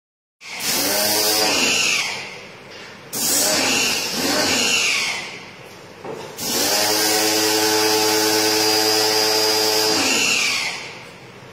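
Portable electric pressure washer running in three bursts as the spray trigger is pulled and let go. The motor whine rises at each start and falls at each stop, over the hiss of the water jet on a split AC indoor unit. The last burst is the longest, about four seconds.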